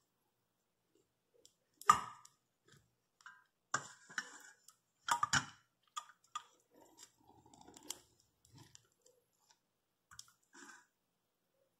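Wax honeycomb on a frame being scraped and crushed open with a hand tool: irregular sticky crackling and clicks, the loudest about two seconds in.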